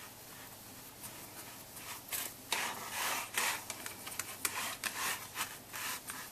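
Soft, irregular rubbing and scraping of floury fingers pressing shortcrust pastry into the side of a baking tin, busier and louder from about two seconds in.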